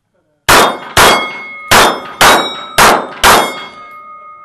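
Six 9mm shots from a Canik TP9SFX pistol, roughly half a second apart, each followed by the ring of steel plate targets being hit. After the last shot the steel keeps ringing as a fading steady tone.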